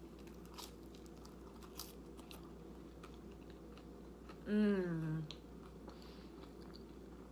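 A person chewing chips and dip close to the microphone, with faint crunches and wet mouth clicks. About four and a half seconds in comes a short hummed "mmm" that falls in pitch, the loudest sound here.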